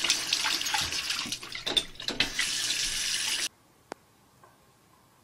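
Bathroom faucet running into a sink, the water splashing unevenly as a dog drinks from the stream. It cuts off suddenly about three and a half seconds in, leaving near silence with a single faint click.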